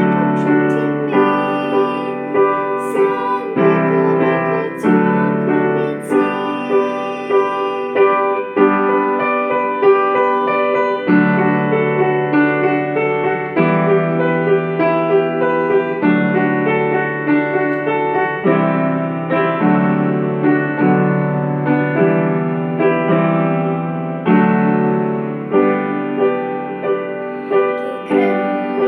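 Piano playing a slow pop-ballad accompaniment, chords struck about once a second.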